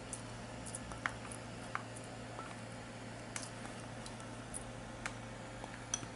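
Faint, scattered light clicks and taps of kitchen utensils over a steady low electrical hum.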